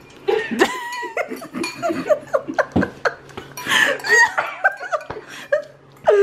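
Laughing and coughing, in short broken bursts, with a few sharp clicks of forks against bowls.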